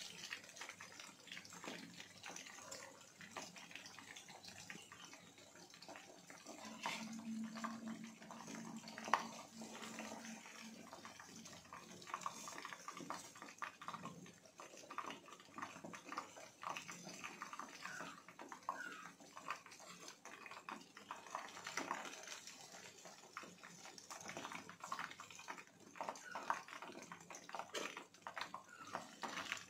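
Chicken pieces deep-frying in hot oil, with a continuous sizzle and many small crackles. Now and then the slotted spoon clinks and scrapes against the pan as the pieces are turned and lifted.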